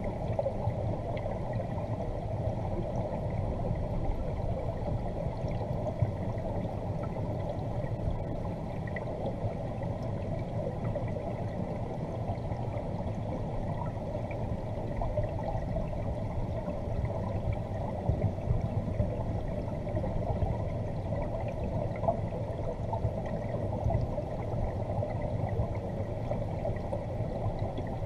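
Steady, muffled rush of circulating pond water heard through a camera held underwater in a koi pond, the water kept moving by the filter-fed jets, with a few light knocks now and then.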